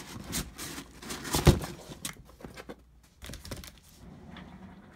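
Cardboard shipping box being handled and opened: flaps rustling and scraping in short bursts, with one loud knock about a second and a half in.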